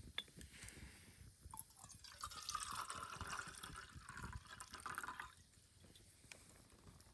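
A drink being poured into a cup for about three seconds, with a few small clicks before it.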